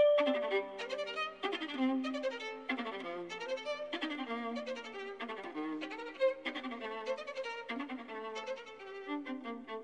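Background music with a violin playing a quick, busy melody of many short notes.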